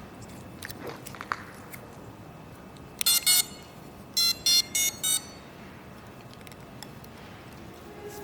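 Electronic beeps with a steady pitch: two longer beeps, then about a second later four short beeps in a row, over a low background with a few faint clicks.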